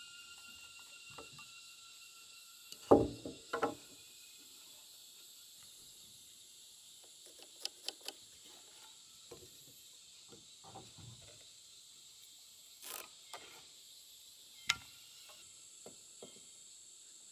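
Scattered knocks and clicks of a carpenter's square and timber being handled while a log is marked out, the loudest a quick pair about three seconds in, over steady insects chirring.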